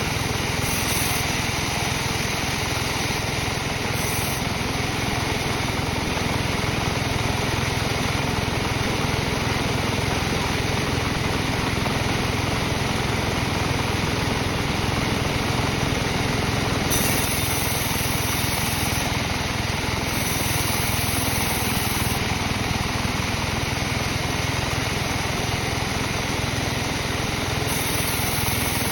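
Sawmill machinery running steadily with a constant engine-like drone, while teak is being sawn into beams.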